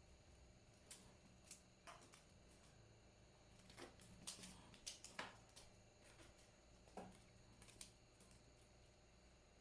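Near silence with a low room hum and faint, irregular clicks and light taps, about nine of them, a little denser around the middle.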